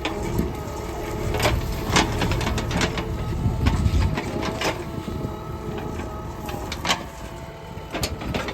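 JCB 3DX backhoe loader's diesel engine running steadily under load, with irregular sharp knocks and clatter of stones striking the steel bucket as it digs.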